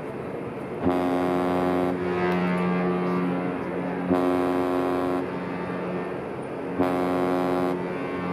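Cruise ship's horn sounding a deep, many-toned blast as the ship departs. It starts about a second in and swells again about four seconds in and near the end, with the low notes hanging on in between.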